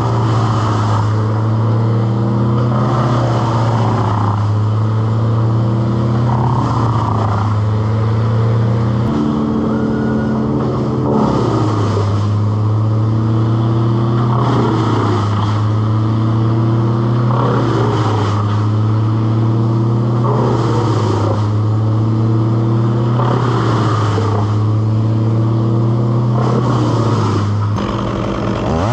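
An engine running steadily at a constant speed, its pitch sagging slightly and recovering every few seconds. It stops shortly before the end.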